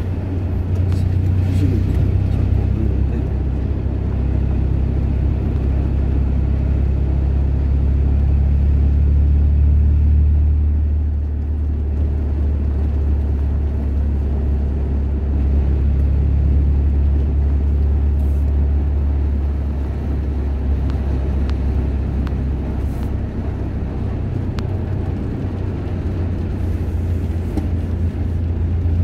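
Steady low engine and road rumble heard from inside a car's cabin while driving.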